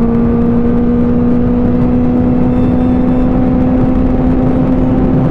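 Benelli 600i's inline-four engine pulling steadily at highway speed, its note climbing slowly as the bike gains speed, over heavy wind rush on the microphone.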